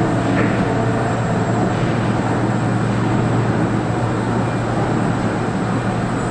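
Steady factory machinery noise: a loud, even low hum with a hiss over it, from a car-body conveyor line and plant equipment running.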